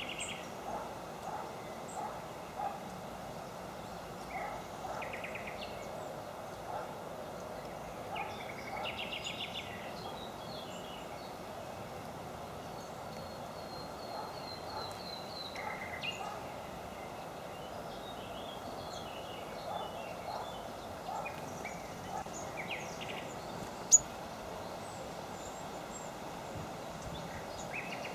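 Several small birds calling: short buzzy trills, a quick run of high notes about halfway through, and repeated short lower calls, over a steady hiss. A single sharp click about 24 seconds in.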